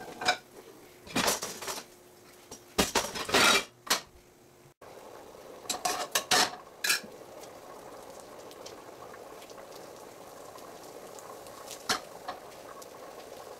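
Kitchen clatter: metal pots, pans and utensils knocking and clinking in several short bursts over the first half. A steady hiss from the stovetop runs under the second half.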